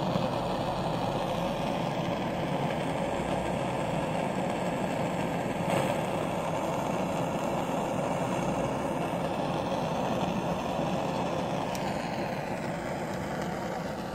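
Hose-fed gas blowtorch burning with a steady rushing flame, with one sharp click about six seconds in. The flame noise cuts off suddenly at the very end.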